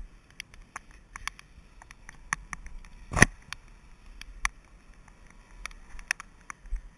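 Irregular clicks and light taps, with one sharper knock about three seconds in: handling noise from a body-worn action camera rubbing and knocking as its wearer moves.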